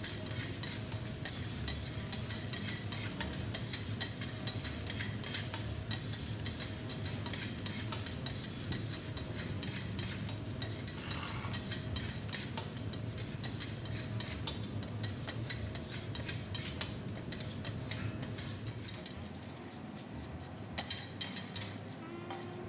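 Sliced garlic deep-frying in oil on a teppanyaki steel griddle, sizzling and crackling steadily, with light clicks and scrapes of the chef's metal spatulas. The sizzle turns softer in the last few seconds.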